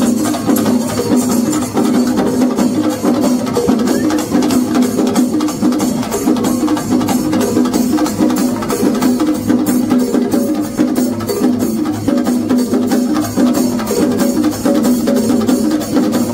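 Shinkari melam ensemble: many chenda drums beaten rapidly with sticks in a fast, steady rhythm, with ilathalam hand cymbals clashing over them.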